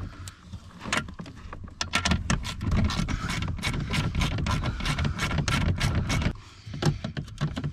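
Hand tool backing out an 8 mm bolt under a dashboard: a run of quick, uneven clicks and scrapes over a low rumble, dropping off briefly about six seconds in before the clicking resumes.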